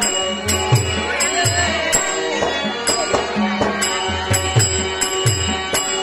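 Live folk-theatre music: a harmonium holding steady notes, a hand drum whose bass strokes slide down in pitch, and small cymbals struck in time.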